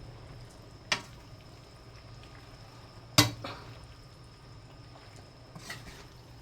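Pot of pansit canton noodles simmering in a watery sauce with a steady low bubbling, and sharp clinks of a utensil against the pot about a second in and again about three seconds in, with a softer one near the end.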